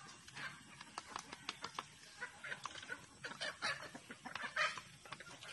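Backyard poultry clucking while being fed: a run of short repeated clucks and calls with small clicks between them, loudest a little past four seconds in.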